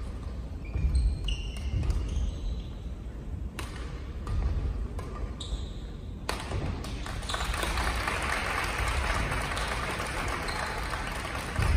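A badminton rally on a gymnasium court: sharp racket strikes on the shuttlecock a few seconds apart, with short rubber-sole squeaks and footfalls on the wooden floor. From about seven seconds in, a steady wash of noise fills the hall.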